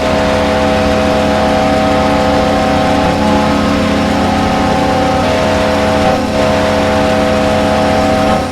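The Buffalo Sabres goal horn, a Kahlenberg Q-3, sounding as an ES44AC locomotive's train horn: a loud, steady chord held for about six seconds, a brief break, then a second blast that fades out near the end. A low diesel engine rumble runs underneath.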